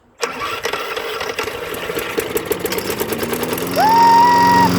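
Small lawnmower engine firing up on starting fluid and running with rapid, uneven ticking, settling into a steadier run after about three seconds. A short rising whoop-like tone comes near the end.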